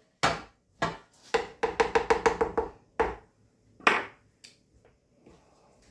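Metal cookware clanking: a few single knocks, then about a second and a half in a quick run of about eight ringing knocks, and two more knocks after it, as a pot of thick cooked cornmeal mush and a pan are handled with a utensil.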